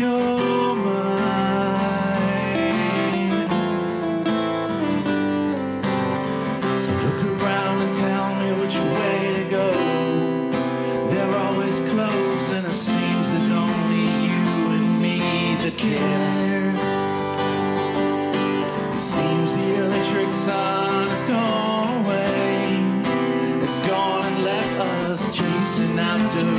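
Two acoustic guitars playing a song together, with a man singing over them.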